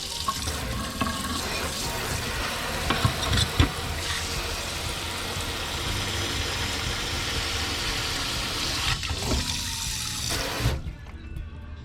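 Water running steadily from the RV's newly connected plumbing and splashing into the shower, stopping abruptly near the end after a brief break.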